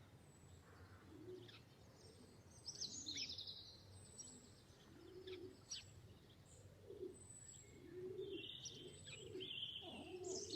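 Birds calling: short, low cooing calls that repeat about twice a second from around the middle on, with scattered high chirps and whistles over them.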